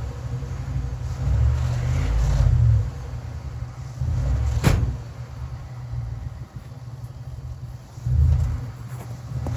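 Starter slowly cranking the 1967 Mercury Park Lane's 410 Ford FE V8 without it catching, the low churning swelling and sagging: a battery too weak to spin the engine properly. A single sharp crack about halfway through.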